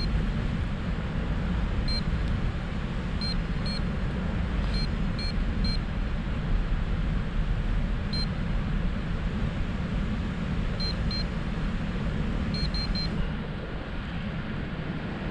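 Wind rushing over the microphone of a paraglider in flight, with short high beeps every so often, single or in quick groups of two to four, from a flight variometer signalling lift.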